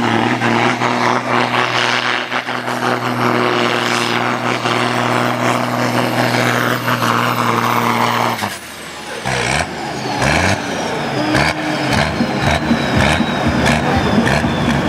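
Valmet farm tractor's diesel engine under full load pulling a weight-transfer sled, running steadily at high revs. About eight seconds in it changes abruptly to a lower, uneven running with a faint whine falling slowly in pitch as the pull winds down.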